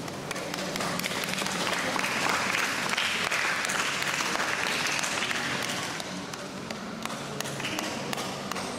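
Audience applauding: dense clapping that builds over the first couple of seconds, holds, then thins out after about six seconds.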